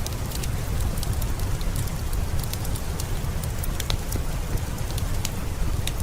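Steady heavy rain with a low, even rumble, and a wood fireplace crackling in scattered sharp pops over it.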